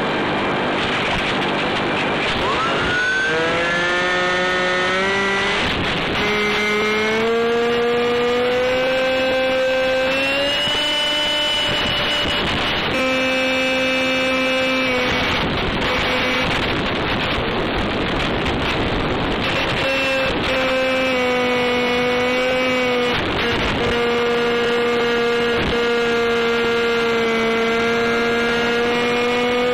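UM Stryker micro flying wing's electric motor and propeller whining in flight. The pitch climbs about three seconds in and then shifts up and down with the throttle, over a steady rush of wind and noise.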